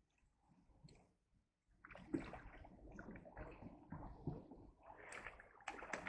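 Faint water splashing and sloshing, starting about two seconds in.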